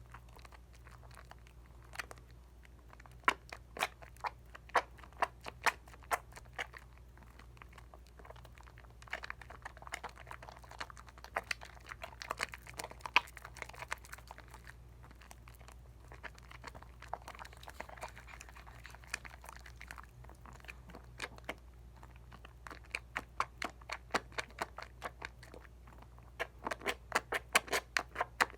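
Dial coconut soap being worked into lather by hand: wet, crackling bubble and squish sounds with many sharp little clicks, busier in the middle and near the end, over a steady low hum.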